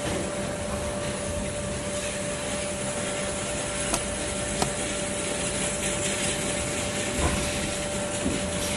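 Steady machine hum with a constant whine, broken by a few light clicks.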